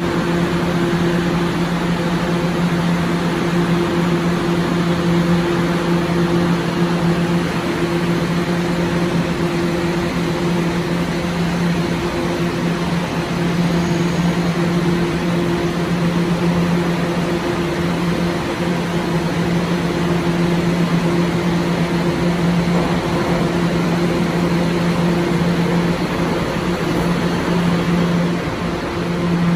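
Steady hum inside a Kawasaki R211A New York City subway car: a constant droning tone over a hiss of air from its ventilation and onboard electrical equipment, with the pitch not changing, as when the train stands at a station.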